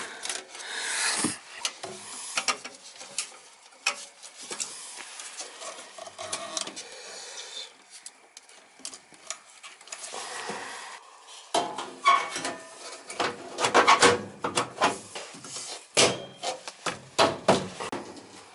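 Hand tools and gas-furnace parts being handled: rubbing and scraping with many short clicks and clatters, busiest and loudest in the last third.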